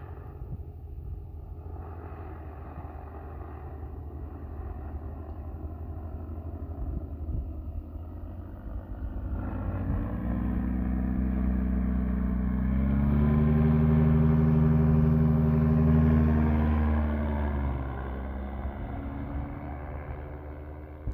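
Paramotor engine and propeller droning as the powered paraglider flies past: faint at first, growing louder from about halfway, loudest a few seconds later, then fading toward the end. A low wind rumble on the microphone runs underneath.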